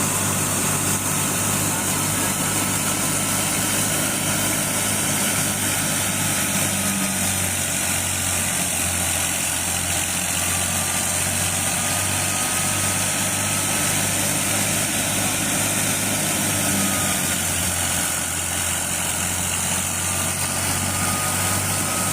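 Engine of farm machinery running steadily without change, with a thin high whine over its low drone.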